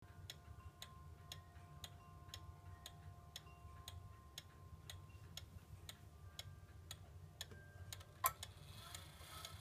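Linden pendulum wall clock ticking faintly and evenly, about two ticks a second. Near the end a louder click and a brief rustle as the minute hand is pushed forward by hand.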